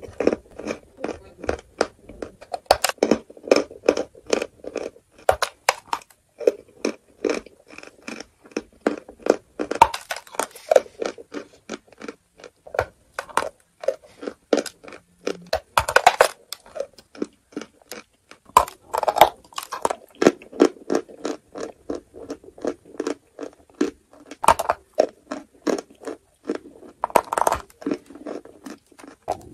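Close-miked crunching and chewing of a lump of white chalk being bitten: dense runs of sharp, crackling crunches, with several louder bites standing out.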